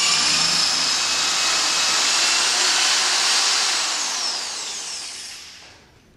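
Electric drill running at full speed, then released, its motor winding down with a falling whine near the end.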